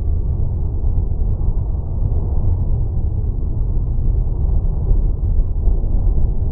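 Steady, muffled low rumble of ballpark crowd ambience from the stands, with no distinct crack or glove pop standing out.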